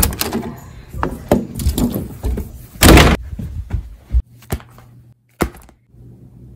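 A lever-handled double door being worked: handle clicks, then the door shut with a loud thud about three seconds in, followed by scattered lighter knocks and clicks.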